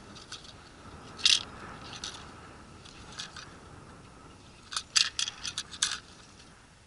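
Sharp crunches and clicks from movement at the ice hole: one about a second in, a couple of fainter ones after, then a quick run of about six near five seconds in.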